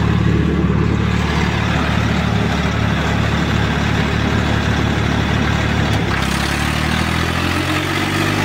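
Diesel tractor engines idling with a steady low throb, the Swaraj 855 nearest. Near the end the engine note shifts up a little and wavers.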